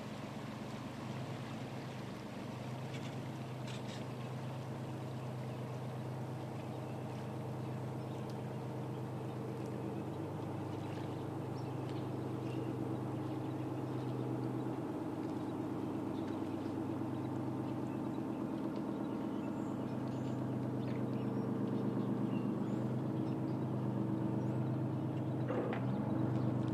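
Small workboat's engine running at low speed, a steady low hum that grows gradually louder as the boat draws near.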